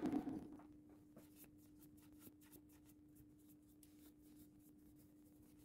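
A manual lathe winding down in the first half second after being switched off, then faint rubbing and light scratching as a cloth wipes the freshly turned aluminium velocity stack in the chuck, over a faint steady hum.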